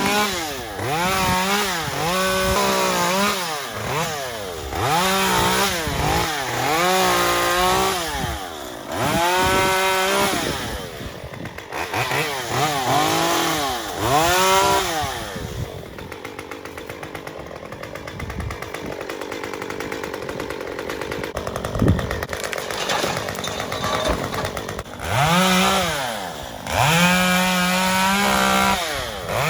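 Small chainsaw revving up and down in repeated short bursts while limbing a felled tree. It drops back to a lower, steadier running in the middle for several seconds, then revs again near the end.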